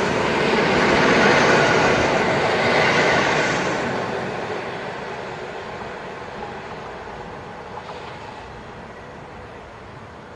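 A 1968-built EN57 electric multiple unit running past on the rails close by. Its noise fades away over about four seconds as it draws off, leaving a low distant hum.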